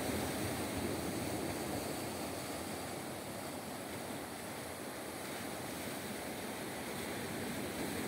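Sea surf breaking and washing over a rocky shore: a steady rush of water that eases slightly midway and swells again toward the end.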